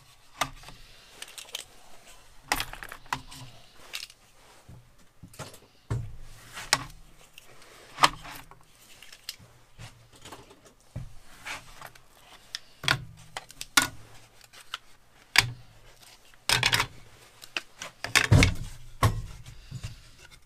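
Irregular clicks, clacks and knocks of plastic spring clamps and one-handed bar clamps being handled, set and laid down on a steel worktable around a glued-up wooden casting pattern. The loudest knocks come in a cluster near the end.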